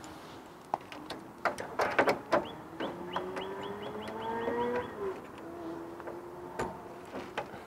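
Clicks and small rattles of a backup-camera cable's plug being fitted and screwed onto its socket on a trailer, with the loudest clicks about two seconds in. Through the middle a drawn-out rising tone sounds in the background.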